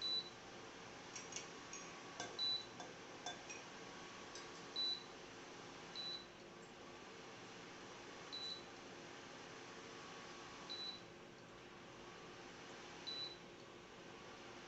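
A short, high, single-pitched beep repeating about every two and a half seconds, with a few light clicks in the first few seconds, over a faint steady hum.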